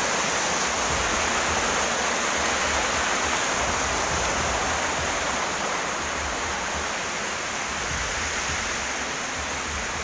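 Fast-flowing forest stream rushing steadily, running high after rain; the rush eases a little in the second half.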